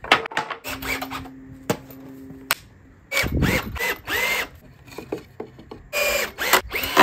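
Cordless drill driving into pallet wood in short runs, its motor whining up in pitch as each run starts, about three seconds in and again near the end. Knocks and clicks of timber being handled come before the drilling.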